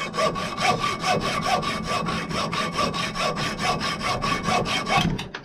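Hacksaw cutting across a stainless steel touch-hole liner screwed into a flintlock barrel, sawing along the liner's groove in quick, even strokes, several a second, until it stops shortly before the end.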